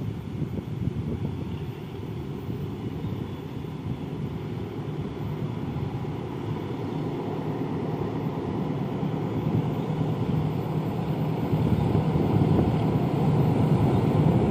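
Diesel locomotive engine running under load as it hauls a passenger train closer, a steady low drone that grows gradually louder.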